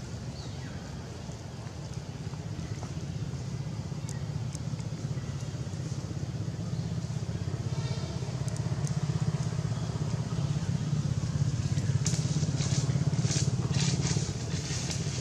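A motor engine running steadily, gradually growing louder, with a cluster of sharp crackles near the end.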